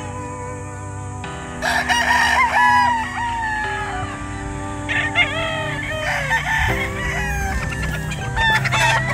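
Gamefowl roosters crowing, several crows in turn, the loudest about two seconds in, over background music with long held notes.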